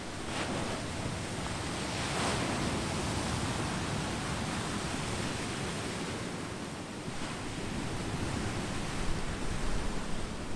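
Pacific surf washing over a beach of smooth volcanic boulders and pebbles: a continuous rushing wash that swells as waves surge in, once about half a second in and again around two seconds in.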